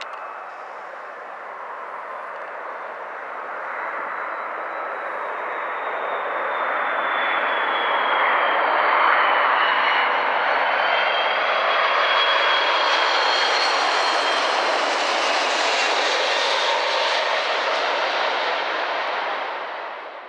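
Twin-engine widebody jet airliner on landing approach passing low overhead. The engine roar builds over the first several seconds and holds loud, with a high fan whine that slides down in pitch, and the sound cuts off suddenly near the end.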